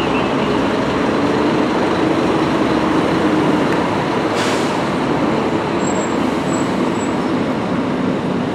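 Diesel coach engines running at low speed: a coach passing close, then a Scania-chassis Modasa Zeus 3 double-decker pulling forward. A short hiss comes about four and a half seconds in, and three faint short high beeps follow a couple of seconds later.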